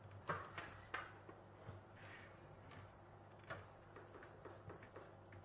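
Faint scattered clicks and light taps of a bare laptop mainboard being handled and set down on a desk, with a few soft rustles between them.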